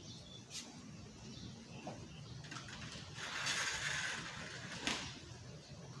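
Faint, scattered chirps of Eurasian tree sparrows. The loudest thing is a burst of hissing noise lasting about a second and a half in the middle, and there are two sharp clicks, one near the start and one near the end.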